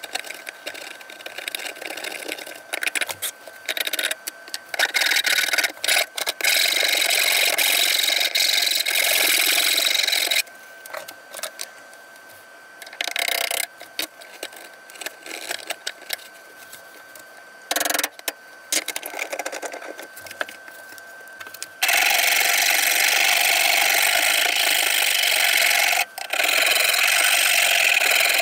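Hand tools working cypress wood: broken runs of chisel paring cuts and scrapes with pauses between them, then, from about two-thirds of the way in, a continuous run of back-and-forth stroking on the wood.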